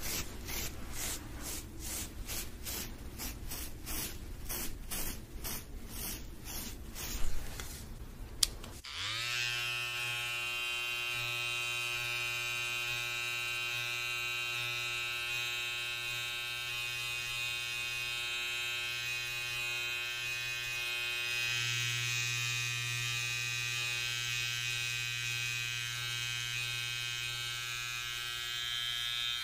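Rhythmic scratchy strokes close to the microphone, about two or three a second, with a couple of sharp clicks; then, about nine seconds in, an electric hair trimmer switches on and runs with a steady buzz.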